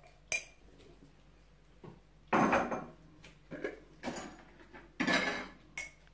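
Kitchen utensils and dishes clinking and scraping: a sharp click near the start, then several short clatters, some with a brief ring.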